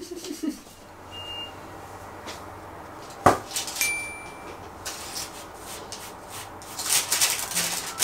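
Wooden spoon stirring freshly baked granola on a lined baking tray near the end, a dry, crunchy rattling and scraping. Earlier come a sharp knock about three seconds in and two short high beeps.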